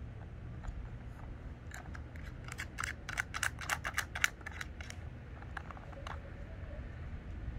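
Plastic dog puzzle toy clicking and clacking as a Bichon Frise noses at its sliding pieces and lids to get at the treats: a quick flurry of clicks lasting about two and a half seconds, then a few scattered clicks, over a low steady rumble.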